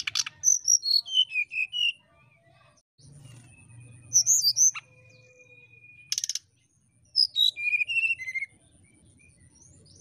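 Brown-chested jungle flycatcher (sikatan rimba dada coklat) singing three short phrases of clear whistled notes, mostly falling in pitch. A sharp click comes right at the start and another about six seconds in.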